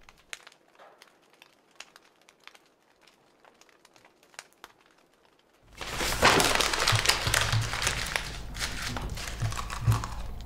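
Near silence with a few faint clicks, then from about six seconds in a loud, dense crinkling and rustling full of small crackles, like paper or a wrapper being handled at the table.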